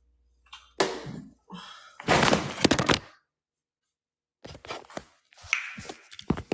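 Handling noise: a sharp knock, then a louder rustling clatter lasting about a second, a pause, and a run of quick clicks and knocks.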